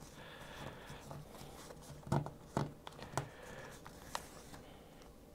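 Folded paper airplane being pressed and creased by hand against a wooden table: faint paper rustling with a few short, crisp crackles between about two and four seconds in.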